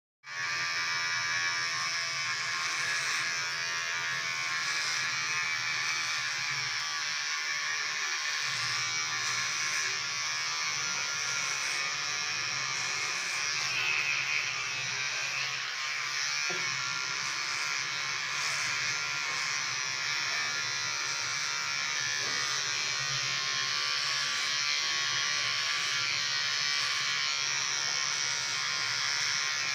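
Electric hair clippers running steadily while cutting hair. The sound comes in suddenly at the start and holds an even pitch and level throughout.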